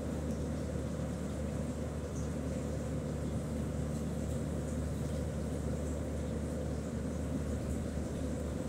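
Steady low background hum, with faint scratches of a ballpoint pen writing on paper.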